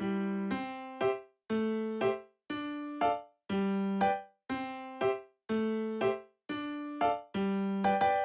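Background music: an electric piano playing a simple, evenly paced pattern of struck chords, each note fading quickly.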